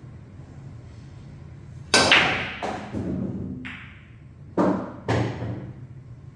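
Pool break with a Mezz EXCEED cue: a loud sharp crack of the cue striking the cue ball about two seconds in, then the rack scattering with clattering ball-on-ball and cushion hits that fade over a second or so. Two more sharp clacks of balls colliding follow about half a second apart.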